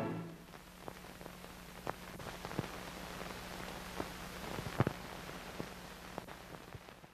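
Surface noise of an old film soundtrack: a steady hiss with a low hum, dotted with irregular clicks and pops. The tail of the closing music dies away right at the start.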